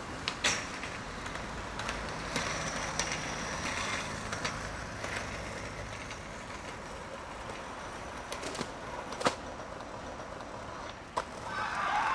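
Skateboard rolling and sliding along a metal railing, with several sharp clacks of the board against the rail and the ground; the loudest clack comes about nine seconds in.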